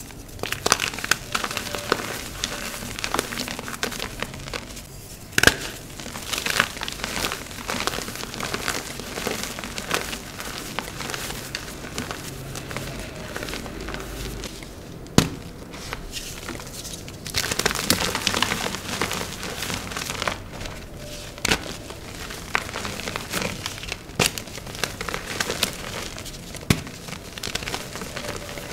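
Gym chalk being crumbled and crushed: steady crunching and crackling, with a few sharper snaps as pieces break.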